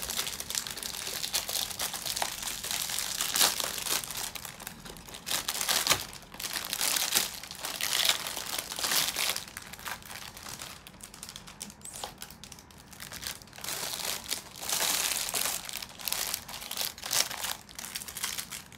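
Snack packaging and parcel wrapping crinkling and rustling as it is handled by hand, in uneven spells with short pauses between.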